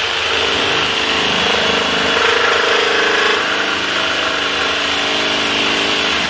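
Cordless drill driving a reciprocating saw attachment, its fine-tooth blade sawing through PVC pipe. The saw runs steadily throughout, then stops abruptly at the end as the cut is finished.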